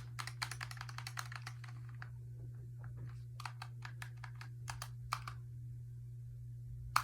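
Keys of a Razer Huntsman Tournament Edition keyboard, with linear optical switches, being typed: a quick run of clacks in the first two seconds, a few scattered keystrokes after, then a pause and a couple of louder clicks near the end, over a steady low hum.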